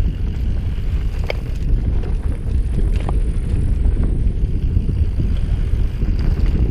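Steady low wind buffeting on a helmet-mounted camera's microphone while riding a mountain bike along a dry dirt trail, with tyres rolling over dirt beneath it. A couple of sharp clicks or rattles come from the bike, about a second in and again about three seconds in.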